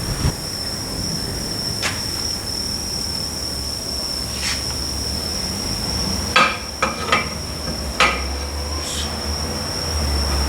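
A few sharp metallic clinks and knocks from differential parts being handled during strip-down: single ones about two and four and a half seconds in, then a quick cluster of four about six to eight seconds in. A steady high-pitched whine and a low hum run underneath.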